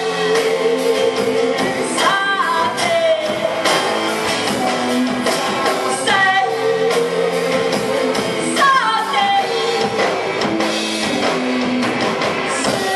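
Live rock band playing a song: singing over electric guitar, bass guitar, acoustic guitar and drums, with regular drum hits and several sung or played notes sliding down in pitch.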